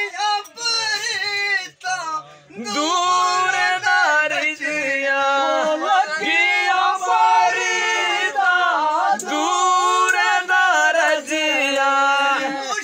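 Singing of a Dogri folk song (gittru), with long held notes and pitch that glides and bends between them.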